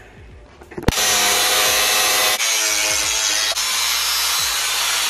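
Angle grinder with a cut-off wheel cutting through the truck cab's sheet-metal pillar. It starts about a second in and runs loud and steady with a whine, dipping briefly twice.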